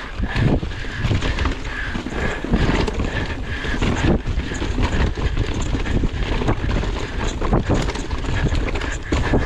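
Mountain bike descending a rough trail at speed: wind buffets the microphone while the bike clatters and knocks over bumps and roots. A high tone comes and goes throughout.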